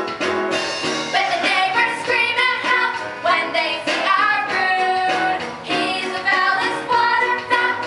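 Stage musical number: voices singing a melody over musical accompaniment.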